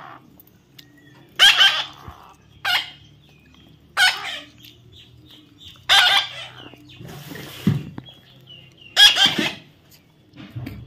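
Baby parrot giving five short, loud calls about a second or two apart. A softer rustle with a low thud comes between the fourth and fifth call.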